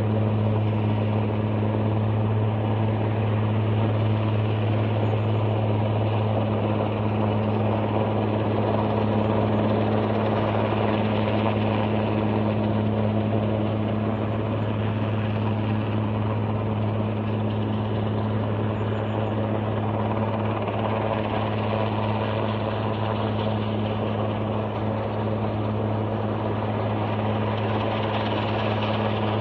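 Helicopter hovering, a steady drone with a low, even hum.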